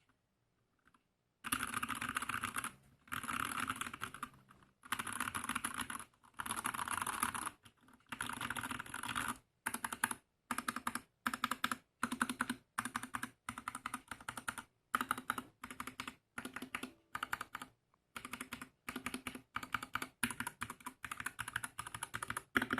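Typing on a Gamakay TK68 mechanical keyboard with Gateron Silver linear switches and ASA-profile keycaps. It comes in quick bursts of clacking keystrokes about a second long with short pauses, then in shorter, choppier bursts from about halfway in.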